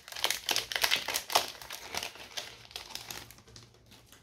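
Flesh and Blood History Pack 1 booster pack's foil wrapper crinkling as it is torn open by hand. The dense crackling is busiest in the first two seconds and dies down toward the end.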